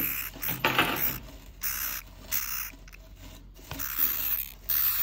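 Scratchy scraping and rustling in a series of short bursts, each lasting under a second, with brief pauses in between.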